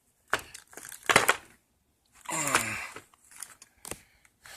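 Hydraulic crimper fittings being handled and pushed into their carrying case: a few sharp clicks and knocks, a longer rubbing scrape about halfway through, then more short clicks near the end.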